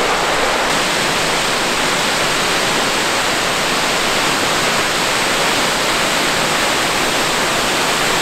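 Murhut Falls, a two-tiered waterfall, with its water falling in a steady, unbroken rush.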